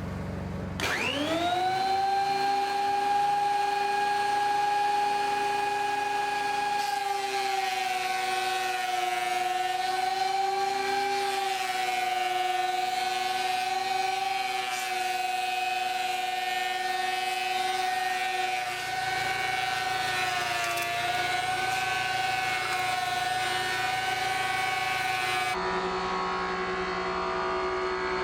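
Ridgid 13-inch thickness planer's motor and cutterhead starting about a second in, the whine rising in pitch and settling into a steady high whine. The sound then grows rougher, with the pitch dipping briefly a few times as the machine takes load, and it changes abruptly near the end.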